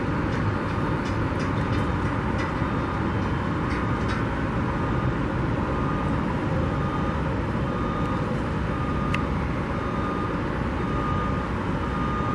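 Steady rumble of city street traffic, with a few faint clicks.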